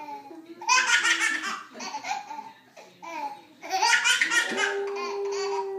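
A baby belly-laughing in loud bursts while a Siberian husky howls, a short held note near the start and a long, steady note from about the middle on.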